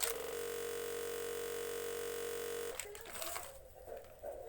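A steady electronic buzzing tone at a constant pitch, lasting about two and a half seconds and cutting off sharply, followed by faint handling noise.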